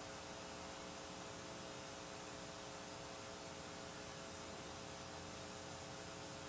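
Steady electrical hum with a constant hiss, unchanging throughout: background noise of the sound system or recording with nothing else heard.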